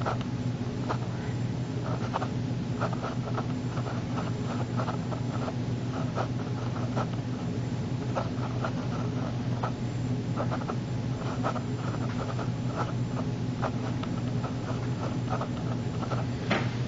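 Livescribe smartpen scratching on notebook paper in short, irregular strokes as words are written, over a steady low hum.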